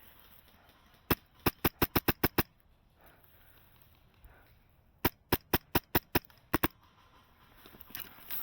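Airsoft gun firing two quick strings of sharp shots, about eight each at roughly five shots a second, the first about a second in and the second about five seconds in.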